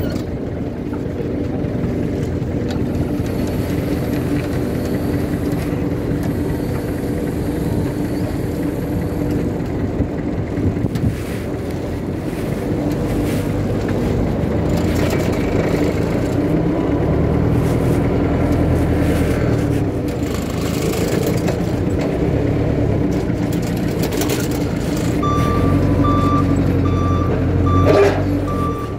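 Forklift engine running steadily as the truck is driven. Near the end its reversing beeper starts a repeating beep, and a single sharp knock follows shortly after.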